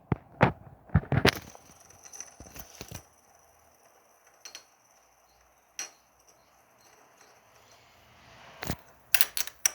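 Small plastic toys and candy being handled: scattered clicks and light knocks, busier in the first few seconds and again near the end.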